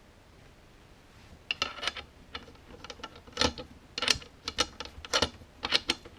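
A run of irregular, sharp mechanical clicks and knocks, starting about a second and a half in.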